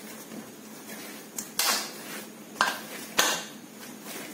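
Paratha dough kneaded by hand in a metal bowl, the bowl knocking sharply three times as it is pressed and shifted.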